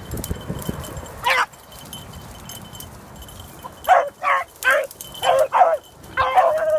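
Beagles baying on a rabbit's trail: one call about a second in, then a quick run of short barks from about four seconds in, the last ones drawn out longer.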